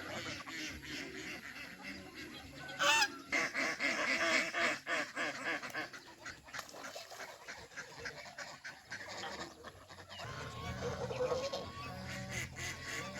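Domestic geese honking, many short calls overlapping and repeating, with one loud, sharp honk about three seconds in.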